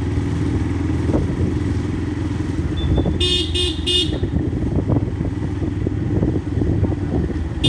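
Yamaha FZ-S motorcycle's single-cylinder engine running steadily while riding in traffic. About three seconds in, a vehicle horn toots three short times in quick succession.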